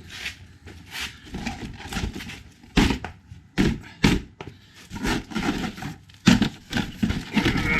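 Cardboard box and packaging being handled as a radio-controlled truck is freed from it: irregular knocks, thunks and short scrapes and rustles.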